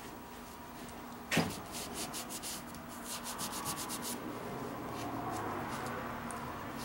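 A cloth shop rag wiping and rubbing a removed front suspension control arm, in quick scratchy strokes. There is one sharp knock about a second and a half in, the loudest sound.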